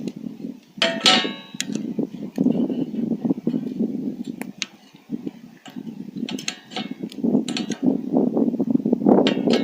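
Metal camp cookware clanking, with one loud ringing clang about a second in and lighter clinks and knocks later, over a steady low rushing, crackling noise.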